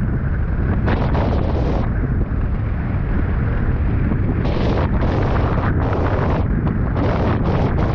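Heavy wind buffeting on the camera microphone while riding a wing foil. There is a constant low rumble, and surges of hiss come and go, notably about a second in and through the second half.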